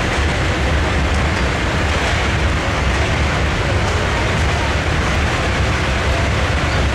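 Antique John Deere tractor engine running hard under load as it pulls a weight-transfer sled, a steady low drone.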